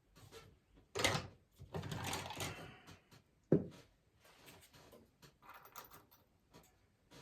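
Handling noises on a workbench as cedar boards and tools are moved about: rustling and scraping, with a single sharp knock about three and a half seconds in.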